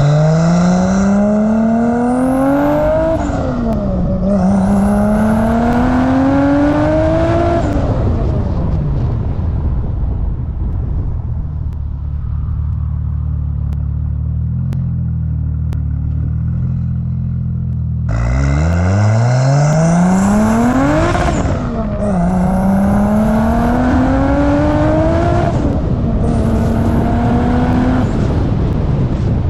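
Turbocharged 2JZ inline-six in a 1987 Toyota Supra, boost set at 13 psi, accelerating hard through the gears: the revs climb and drop back at each upshift. About eight seconds in the revs fall away to a steady cruise, then near the middle it pulls hard again through two more upshifts.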